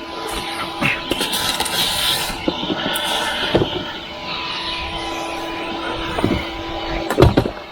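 Vacuum cleaner running steadily with a constant hum and the hiss of suction, broken by a few sharp knocks, the loudest near the end.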